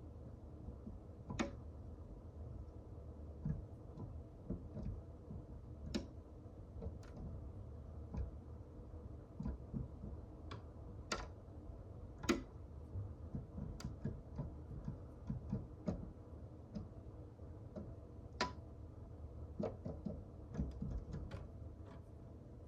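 Irregular light taps and clicks with soft low thuds at a bird feeder: birds pecking at seed and landing on the feeder, over a low steady hum.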